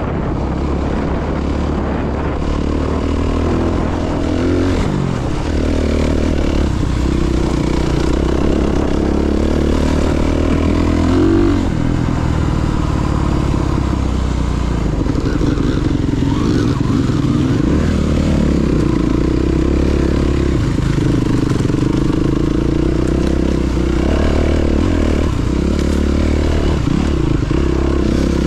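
Honda CRF300RX single-cylinder four-stroke enduro engine riding off-road, its revs rising and falling again and again with the throttle.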